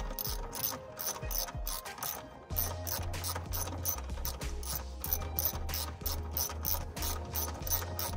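Power drill working a screw loose, giving a fast, even run of ratcheting clicks, with a low hum joining about two and a half seconds in.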